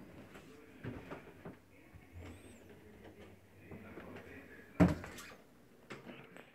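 Faint rustling and handling noise with scattered small clicks, then a single sharp, loud knock or thump about five seconds in.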